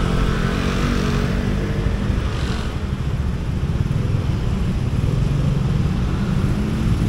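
Motorcycle engine running steadily while riding in city traffic, with wind rumbling on the microphone. A rush of higher noise fades out about three seconds in.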